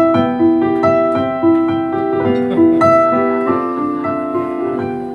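Electric stage piano played solo: a slow melodic line of single notes, a new one about every half second, over held chords, filling a pause in the singing.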